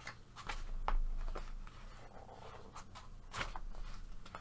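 Paper rustling and brushing as hands handle the pages of a paperback coloring book and smooth them flat, with several brief sharp crackles of paper. The loudest crackle comes about three and a half seconds in.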